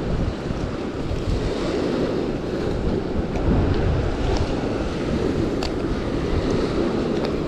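Steady wind buffeting the microphone, with waves washing against the jetty beneath it and a few faint clicks.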